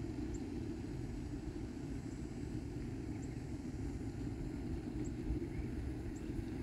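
Steady low outdoor rumble, with a couple of faint peeps from the Muscovy ducklings on the grass.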